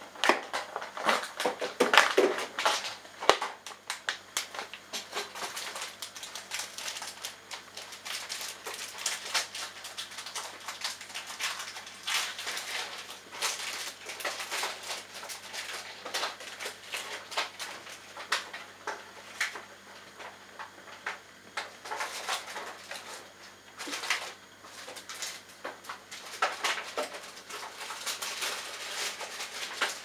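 Bosch Logixx front-loading washing machine tumbling wet laundry in the rinse, water sloshing and splashing in the drum with irregular soft knocks. A few louder clatters come in the first three seconds.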